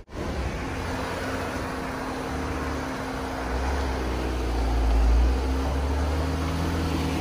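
Jeep engine working under load as it crawls over slickrock: a steady low drone that swells about halfway through, then eases back. The sound cuts in after a momentary gap at the very start.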